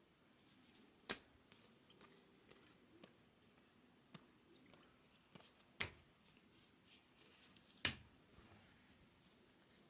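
Faint handling of a stack of baseball trading cards, flipped one at a time, with short sharp clicks as card edges snap and tap. The three loudest clicks come about a second in, near six seconds and near eight seconds.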